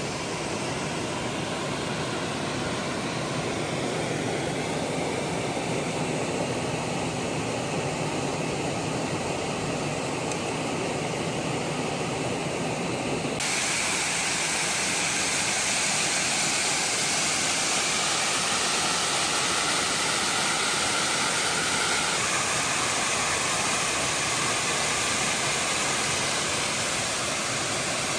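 Waterfalls and a cascading mountain creek rushing steadily. About halfway through, the sound changes abruptly to a brighter, hissier rush of falling water.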